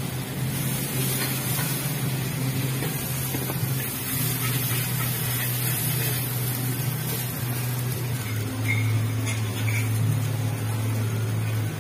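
Nasi goreng frying in a wok: a steady sizzle with a low hum underneath, and a few light clinks of the spatula against the wok near the end.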